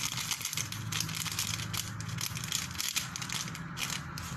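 Plastic seasoning sachet of Magic Sarap crinkling and crackling as it is handled and its contents shaken out over raw chicken. A low steady hum runs underneath.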